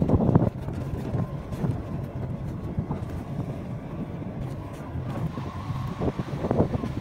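Motorcycle running along a rough dirt track, with wind buffeting the microphone; a louder rumble in the first half second.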